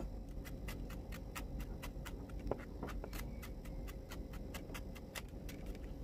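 Broad-bladed kitchen knife chopping shallots on a wooden cutting board: a quick, even run of light taps, about four to five a second, as the shallot is minced fine. A faint steady hum lies underneath.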